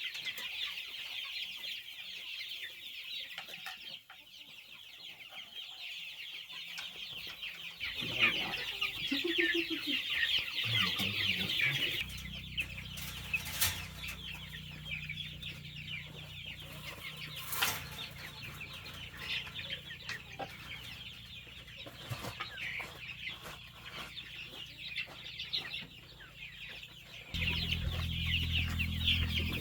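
A flock of chickens clucking and chattering steadily. Two sharp knocks come about halfway through, and a low steady hum rises underneath in the second half, louder near the end.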